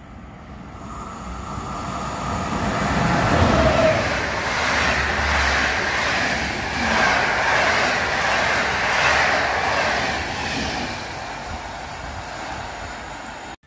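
EP09 electric locomotive hauling a train of Intercity passenger coaches through a station at speed: the sound builds as it approaches, is loudest as the locomotive passes about four seconds in, then becomes a rhythmic clatter of coach wheels over the rails that slowly fades as the train moves away, cut off sharply near the end.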